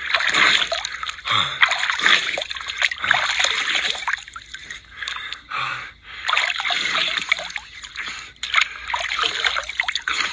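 A hand scooping water from a shallow, muddy stream, in repeated bouts of splashing with water trickling and dripping back from the cupped hand.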